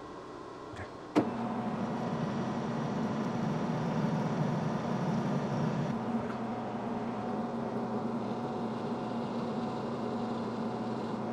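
Metal lathe switched on with a sharp click about a second in, then its motor and spindle running steadily with a constant hum.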